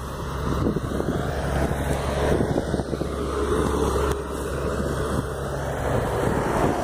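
Highway traffic with heavy trucks passing: a steady low road drone, with wind on the microphone.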